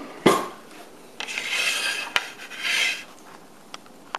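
Kitchen handling noises: a sharp clatter a moment in as a utensil is put away in a drawer, then two rasping scrapes, the first about a second long and the second shorter, with a click between them.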